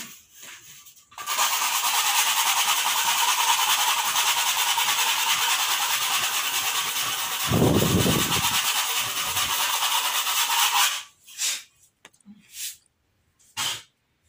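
Spray gun hissing steadily as it sprays the ceiling, starting about a second in and cutting off near the end, with a brief low rumble around the middle.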